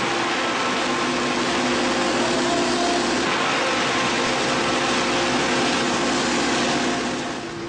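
Foam shredder running, a steady mechanical drone with a hum; it gets quieter about seven seconds in while the hum carries on.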